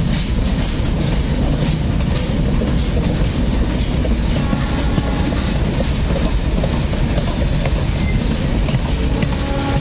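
Humsafar Express passenger train running through a station without stopping, heard from an open coach doorway: a steady heavy rumble of wheels on rail with clickety-clack over the joints. A faint thin whine joins in about halfway through.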